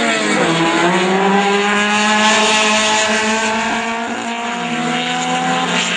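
VW Gol racing cars' engines running hard as a pack passes close by. Several engine notes overlap. The pitch drops sharply about half a second in, then climbs slowly, and falls again near the end.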